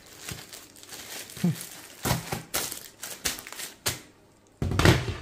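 Plastic bag crinkling and rustling in a run of short crackles as hands seal it and smooth it flat. Near the end comes a single louder thud.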